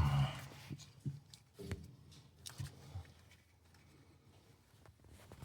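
A few light metal clicks and taps as mechanics wire is worked through the holes in the clutch bolt heads, spaced irregularly over the first three seconds, then almost nothing.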